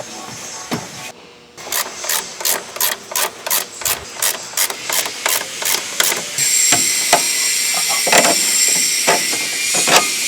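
Wrench tightening the top strut nuts: a quick, even ratcheting rhythm of about four strokes a second, then from about six seconds in a steady air-tool hiss with a few sharp metal knocks.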